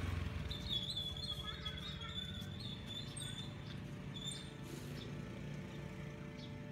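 Outdoor street ambience: a high-pitched chirping trill that runs on with short breaks, over a faint low rumble of distant traffic.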